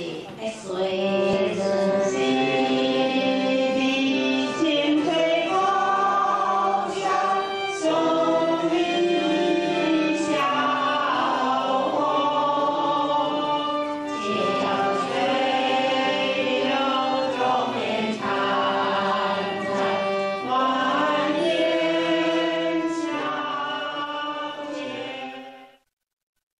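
Singing of a school song with electric piano accompaniment. The music stops abruptly near the end.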